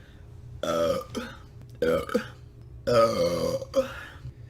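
A woman burping: three deep, drawn-out belches in quick succession, each lasting up to about a second.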